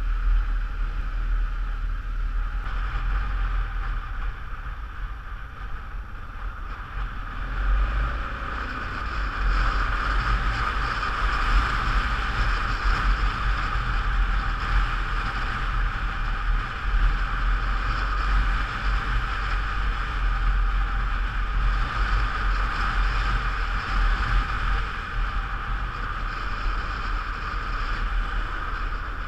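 Wind buffeting the microphone of a camera on a moving motorcycle, over the steady drone of the motorcycle's engine and tyres. It grows louder about a third of the way in.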